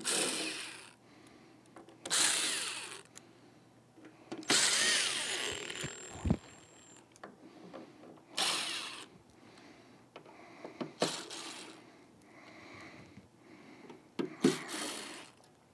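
Cordless drill-driver backing out the screws that hold a subwoofer's metal grille, in about six short whirring bursts, one per screw, the third one longer, around two seconds.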